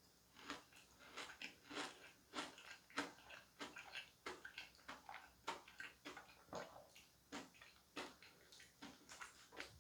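Close-miked chewing of soft cake: an irregular run of small mouth clicks and smacks, two to four a second.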